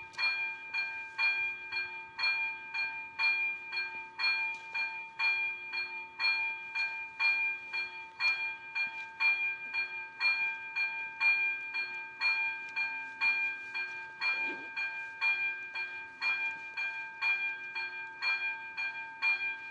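Railway level crossing's warning bell ringing with even, rapid strikes, a little over two a second, each strike ringing the same bright tone: the crossing is active and a train is due.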